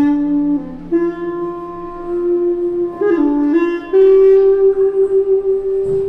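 Live improvised music: a melody of long held notes that steps between pitches, the last and highest note held for about two seconds with an even pulsing waver. A lower held note sounds underneath and fades out partway through.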